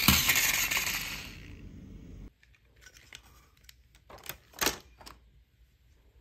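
Plastic toy stunt car tumbling and clattering across a tile floor, the clatter dying away and cutting off about two seconds in. Then a few light plastic clicks and knocks as toy trucks are handled, the loudest a little past halfway.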